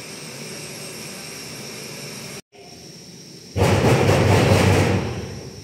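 Portable gas camping stove burner hissing steadily, then a much louder rushing roar for about a second and a half near the end.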